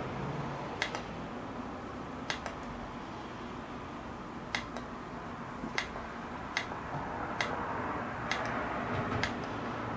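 About nine short, light clicks at irregular intervals over a steady low hiss, like small plastic buttons being pressed on a wireless speaker.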